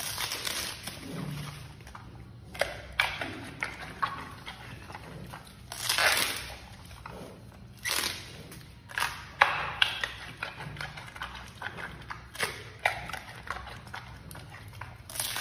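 Giant panda chewing bamboo shoots: irregular crisp crunches and snaps of the fibrous shoot between its teeth, a few of them louder bites.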